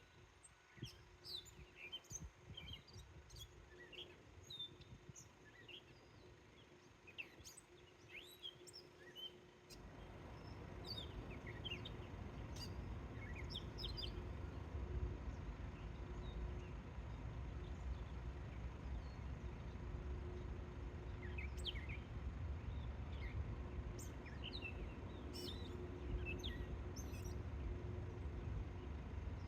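Small birds chirping and calling, many short high notes and quick whistles throughout. About a third of the way in, a steady low rumble with a faint hum starts under the birdsong.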